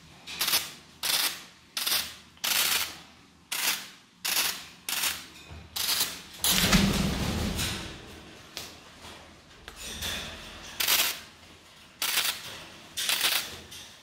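Blue-and-gold macaw flapping its wings hard, a series of short, sharp whooshes about one or two a second, with a longer, fuller burst about halfway through.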